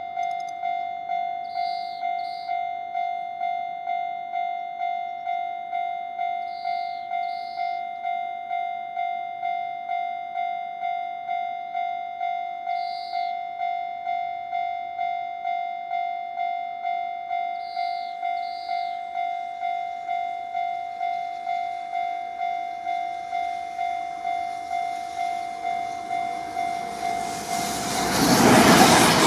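Japanese level-crossing electronic alarm bell ringing steadily at about three strikes every two seconds, warning of an approaching train. Near the end a freight train arrives and its running noise quickly grows loud, drowning the bell.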